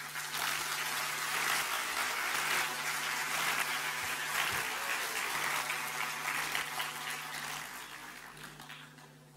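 Large audience applauding, a dense steady clatter of many hands clapping that dies away over the last couple of seconds.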